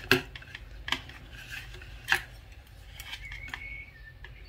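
Metal knitting needles clicking against each other a few sharp times, with soft scraping of yarn, as stitches are bound off one over the next.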